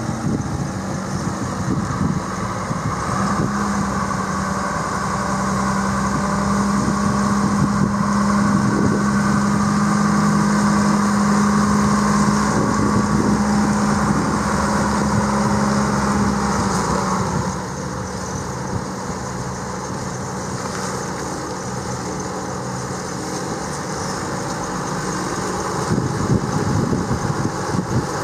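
John Deere 6.8L six-cylinder diesel engine of a 2004 John Deere 7220 MFWD tractor running at a steady speed. It is louder through the first half, drops in level about two-thirds of the way in, and picks up again near the end.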